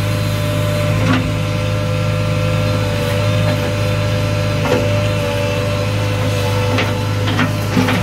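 JCB 3DX backhoe loader's diesel engine running steadily inside the cab while the backhoe digs, with a steady whine over it. A few sharp clanks, one about a second in, one around the middle and several near the end.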